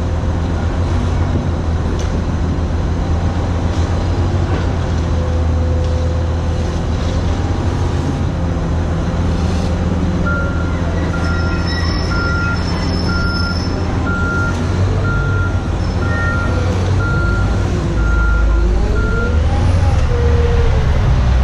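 Heavy diesel earthmoving equipment running steadily, from a Cat 966M wheel loader and a Cat 315 excavator at work. About halfway through, a backup alarm starts beeping about once a second, some ten beeps, and the engine gets louder near the end.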